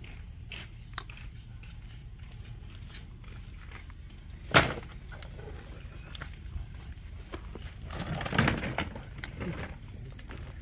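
Piston rings being worked onto an engine piston by hand: small metallic clicks and handling noise, with one loud sharp clack a little before halfway and a stretch of scraping and rustling later on.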